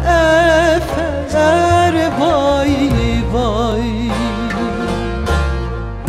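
A woman singing a Turkish folk song (türkü) with heavy vibrato and ornamented, wavering melodic runs over instrumental accompaniment. The voice drops out about four seconds in and the instruments carry on.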